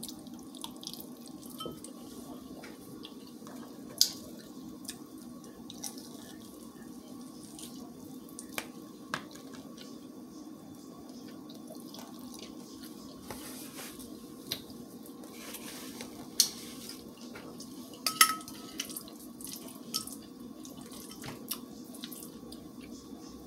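A person eating rice and chewing, with scattered sharp mouth clicks now and then over a steady low hum.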